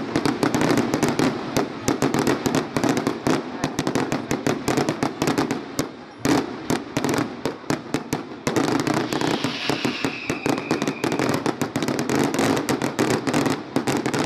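Fireworks display: aerial shells bursting in a rapid, continuous barrage of bangs and crackling stars, with a short falling whistle about two-thirds of the way through.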